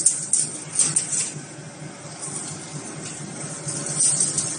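Chain link fence making machine running: a steady low hum under a fast, dense metallic clatter. The clatter drops away about a second in and picks up again near the end.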